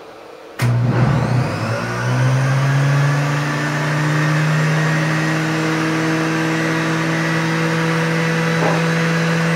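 Juiceman centrifugal juicer switched on with a click about half a second in; its motor spins up with a rising whine over a couple of seconds, then runs steadily at full speed.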